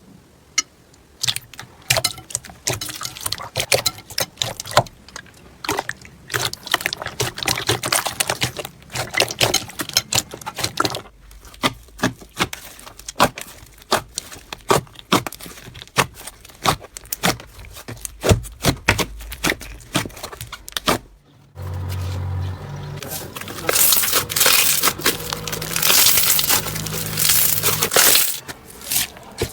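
Slime being squeezed and worked by hand, a fast run of small crackling pops and clicks. About 21 seconds in it changes to a steadier, hissier squishing that grows louder toward the end.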